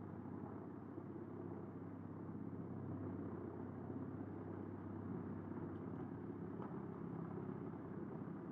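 Eschlböck Biber 84 truck-mounted drum chipper running steadily under load as it chips waste boards, a continuous low drone with a few faint clicks.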